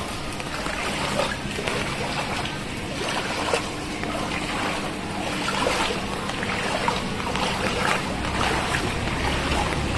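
Feet wading through muddy floodwater on a street, the water splashing and sloshing with each step. A low steady hum comes in near the end.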